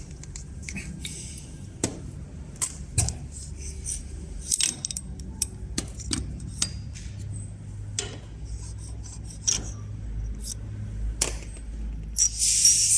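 Small metal injector parts and tools clicking and clinking as they are handled, in irregular sharp taps. Near the end a hiss starts.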